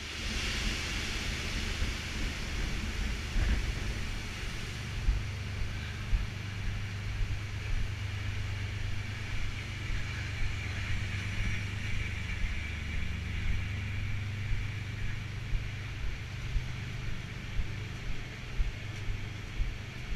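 Steady low hum of offshore platform machinery, with regular footsteps thudding on the steel deck from about five seconds in.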